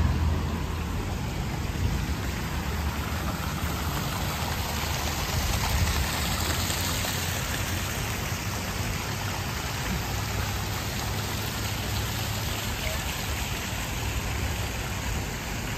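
Fountain jets splashing into a shallow pool: a steady rushing spray, loudest about halfway through, over a low steady engine rumble.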